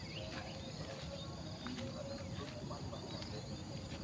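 Insects chirring steadily in a rhythmic high buzz, with a few faint bird chirps, over a low rumble of wind and handling on the microphone.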